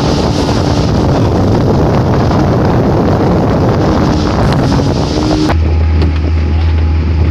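Small wooden river motorboat running at speed: steady engine noise mixed with rushing water and wind buffeting the microphone. About five and a half seconds in the sound changes abruptly to a steadier, lower hum.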